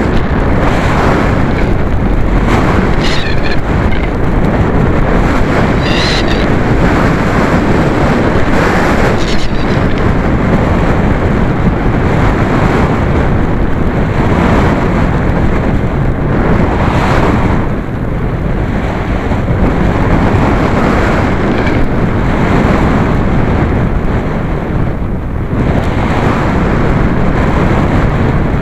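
Loud rushing wind noise from air streaming past the microphone of a camera mounted under the wing of a radio-controlled glider in flight. It swells and eases every few seconds, with no motor sound.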